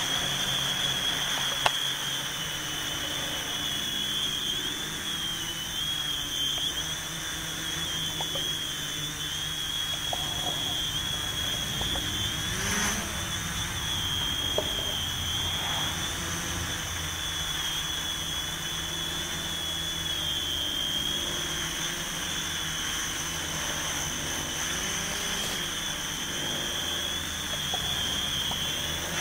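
Y6 hexacopter's electric motors and propellers whining steadily in flight, the pitch wavering a little with throttle, with a brief swell about halfway through.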